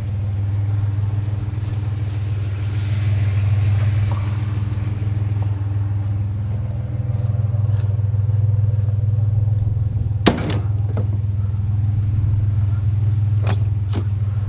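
Truck engine running with a steady low drone. A sharp knock sounds about ten seconds in, and two lighter clicks come near the end.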